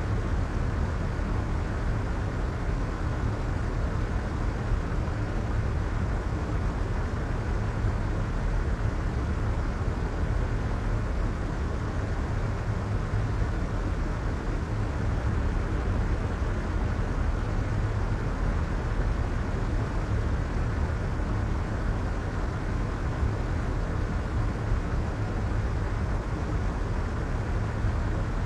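Soft white noise: a steady, even hiss with most of its weight in a deep rumble and little treble.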